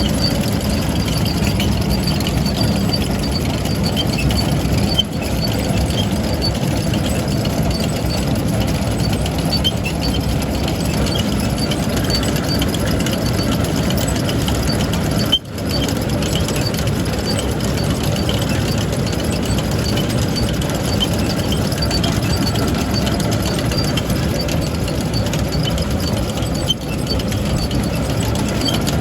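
Farm tractor engine running steadily while pulling an ear-corn picker, with three very short dropouts.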